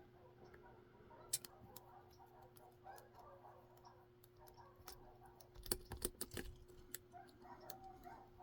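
Faint, scattered small clicks and taps of a plastic plug lockout device being handled and worked with a zip tie, with a cluster of sharper clicks about six seconds in, over a faint steady hum.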